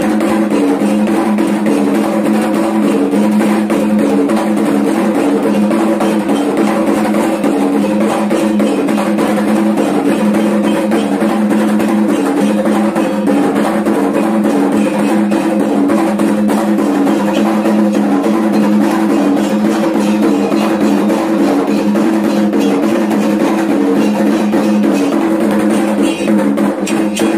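Dayak belian healing-ritual percussion: kendang drums beaten in a fast, steady rhythm, with ringing pitched notes alternating quickly.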